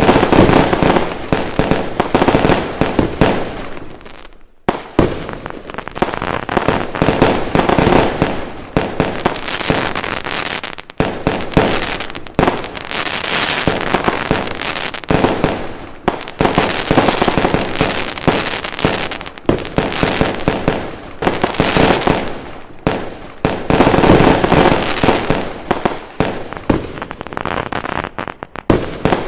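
Fireworks going off in a dense barrage: rapid, overlapping bangs and crackling, with a brief lull about four seconds in before the volley resumes.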